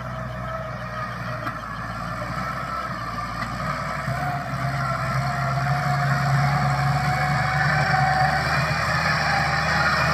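Valmet tractor's diesel engine running steadily under load while pulling a land plane, growing gradually louder.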